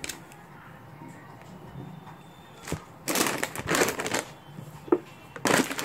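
Plastic and foil snack packets crinkling as they are handled and moved about, in two bursts: one about three seconds in and another near the end.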